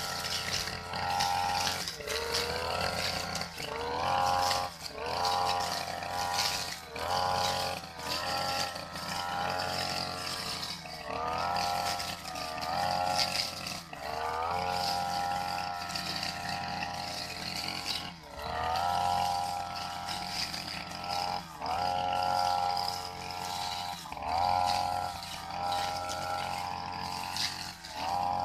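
Backpack brush cutter with a metal cutting blade, its small engine revving up, holding, and dropping back again and again, about every one to two seconds, as it is swung through grass.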